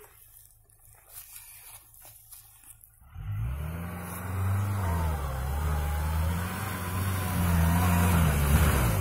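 Off-road vehicle engine revving hard under load, its pitch wavering up and down as the driver works the throttle. It comes in suddenly about three seconds in, after faint clicks, and eases off near the end.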